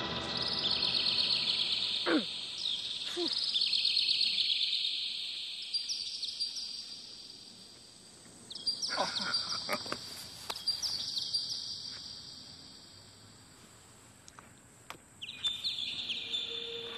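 Payphone's bell ringing: a high, rapid trill in long bursts of about four seconds, with gaps of a few seconds between them, three rings in all. A few short falling swoops sound over the first two rings.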